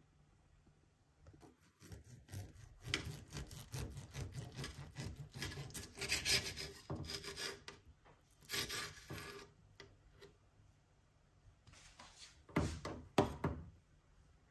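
Table knife sawing back and forth through a cooked meat roll, its blade rasping on the slate board under it, in quick repeated strokes from about two seconds in until about nine seconds. Two more louder strokes come near the end.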